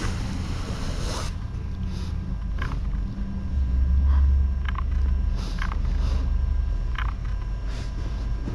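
A young kitten makes a string of short, faint, breathy puffs, about one a second, like tiny hisses. They sit over a low rumble of handling noise, with a burst of rustling in the first second.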